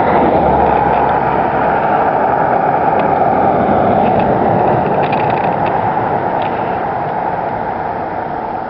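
Road traffic noise: a passing vehicle's tyres and engine make a steady rush that slowly fades over the last few seconds as it moves away.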